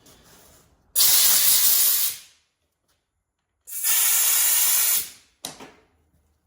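Compressed-air blow gun hissing in two bursts of about a second each, then a short puff, blowing off hydraulic fittings.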